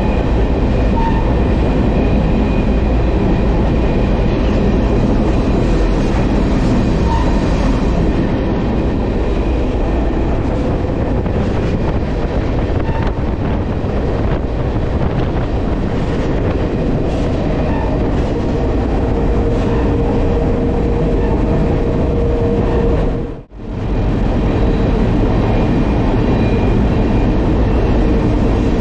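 Moving freight train: a steady rumble and rattle of wheels on rail with faint squealing tones. It drops out for a split second late on.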